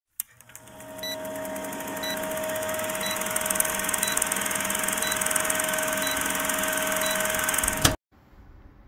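Vintage film-countdown intro sound effect: a film projector's steady whirr and clatter under crackling hiss, with a short beep about once a second. It cuts off abruptly about eight seconds in, leaving faint room tone.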